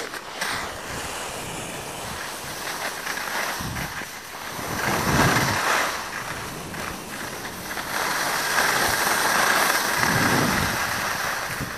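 Wind rushing over the microphone of a skier filming on the move, mixed with skis hissing and scraping over packed snow. It rises and falls in loudness, swelling about five seconds in and again for a few seconds near the end.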